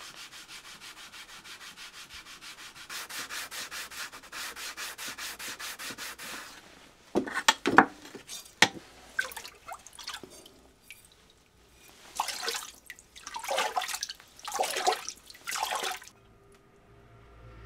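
Small polishing stone rubbed rapidly back and forth by hand over the face of a single-bevel sashimi knife, about four strokes a second, for the bokashi finish that clouds the soft iron cladding. After about seven seconds the rubbing turns into louder, uneven scraping strokes of varying length, which stop about two seconds before the end.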